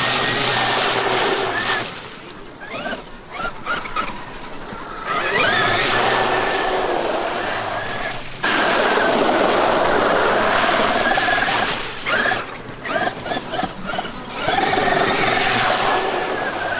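Traxxas X-Maxx RC truck's electric motor and drivetrain whining as it drives, holding a steady high pitch and gliding up and down as the throttle is let off and reapplied, with tyre and ground noise underneath.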